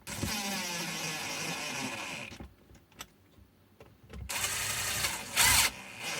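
Cordless impact driver driving screws into a plastic battery case, in two runs, the second ending in a short louder burst.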